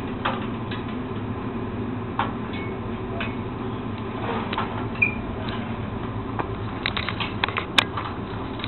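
Hand winch on a portable hoist crane clicking as it is worked: scattered single clicks, then a quick run of ratchet clicks about seven seconds in with one sharp louder click, over a steady low background hum.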